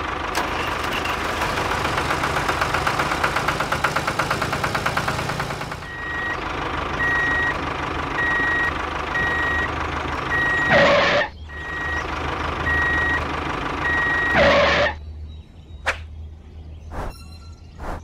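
A truck's diesel engine running with a fast, even pulse. After about six seconds a reversing alarm starts beeping steadily over it, with two short, loud hissing bursts like an air brake, one partway through and one as the beeping stops. Near the end it is quieter, with a few clicks.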